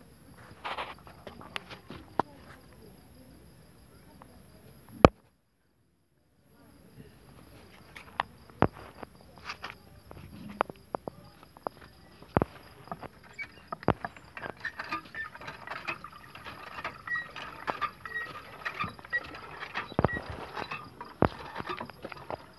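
Night ambience of crickets: a steady high insect trill, with scattered sharp clicks and taps that grow busier in the second half. A loud click about five seconds in is followed by the sound cutting out completely for about a second.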